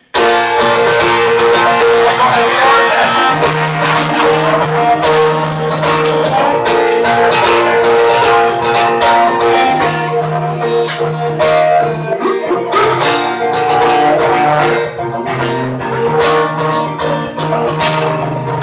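Acoustic guitar strummed steadily with a cello bowing long, held low notes underneath, in an instrumental passage without singing. The cello's held note shifts every few seconds.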